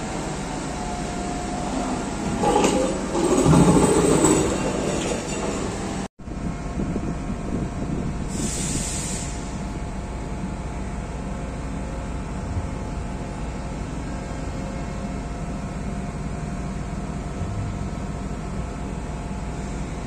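Panama Canal electric towing locomotive ('mule') running along its rail track close by, growing louder about two to four seconds in. After an abrupt cut about six seconds in, a steady rumbling hum carries on, with a brief hiss near nine seconds.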